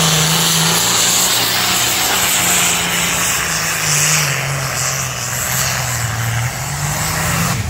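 Diesel pulling tractor's engine at full throttle, dragging the weight-transfer sled down the track. The engine note holds steady, drops lower about halfway through and climbs back near the end.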